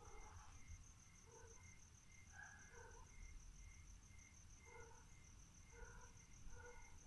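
Faint night-time insect chorus, likely crickets: a steady, rapidly pulsing high trill over a lower chirp repeating about twice a second. Scattered faint, indistinct calls come and go underneath.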